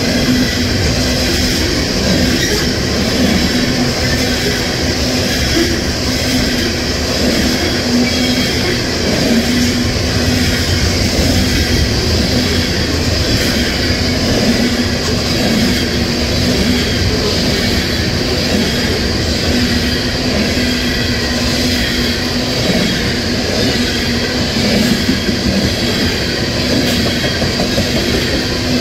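Coal cars of a freight train rolling past at speed: a steady rumble of steel wheels on rail with faint regular clicks over the rail joints and a steady high-pitched ring.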